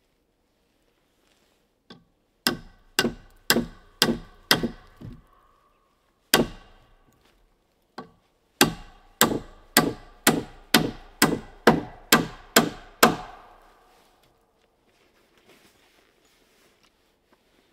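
Repeated tool blows on a log pole of a woodshed frame, about two a second: a run of five, a single blow, then a run of ten, each a sharp knock with a short ringing tail.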